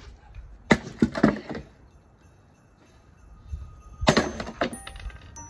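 Hammer blows smashing an old computer desk: three quick strikes about a second in, then two more about four seconds in. Music comes in near the end.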